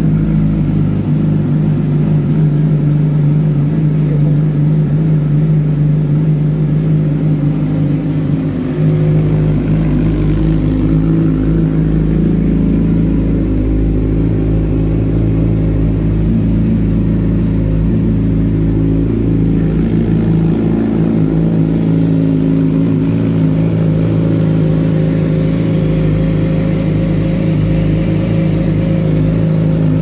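Yamaha R6 sport bike's 599 cc inline-four engine idling steadily during a sound test.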